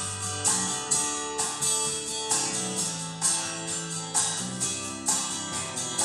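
Guitar-led music with a steady beat of about two hits a second, played through Magnat Monitor Supreme hi-fi loudspeakers for a sound check.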